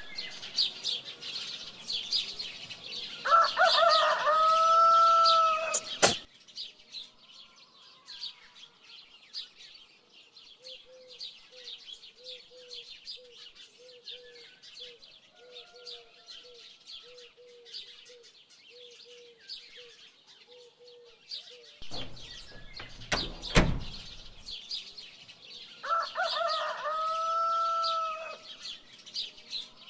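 Morning bird ambience: dense twittering of small birds throughout, with a rooster crowing loudly about three seconds in and again near the end. In between, a low call repeats about once a second for some ten seconds, and a brief thud with a sharp click comes a little after twenty seconds.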